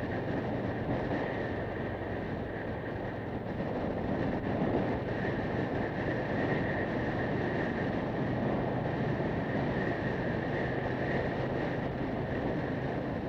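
Motorcycle cruising at a steady speed: a constant mix of engine, road and wind noise with no change in pace.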